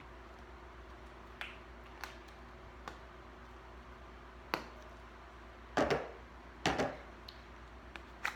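Slime being pushed back into its plastic container: scattered small clicks and pops, with two short, louder handling sounds about six and seven seconds in.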